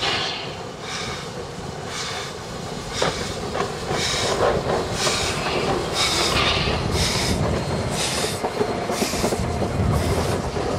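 W-class steam locomotive W934 working past at close range, its exhaust beating steadily about once a second and getting louder about four seconds in. Near the end the wooden passenger carriages roll by with a clatter of wheels over the rails.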